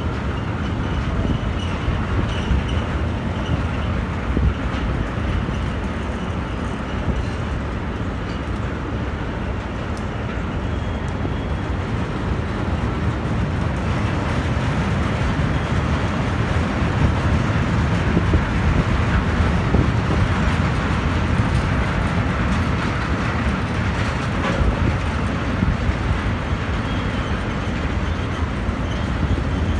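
Freight train of tank wagons rolling past, a steady rumble of steel wheels on the rails that grows a little louder in the second half.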